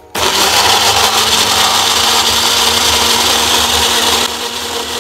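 Personal bullet-style blender switching on abruptly and running steadily, blending a wet plum-flesh and plum-sauce mixture. Its sound drops a little about four seconds in.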